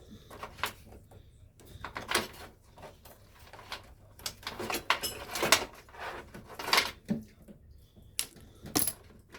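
Computer parts being handled and fitted: an irregular series of clicks, knocks and scrapes of hard parts against each other.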